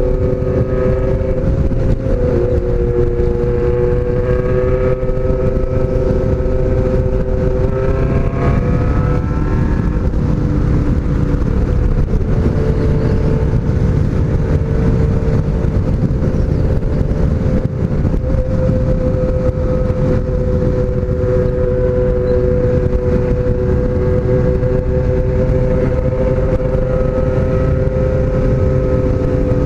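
Honda CBX750F inline-four motorcycle engine running steadily at cruising speed, under a heavy steady rush of wind noise. The engine pitch climbs briefly about eight seconds in, then settles back to a steady drone.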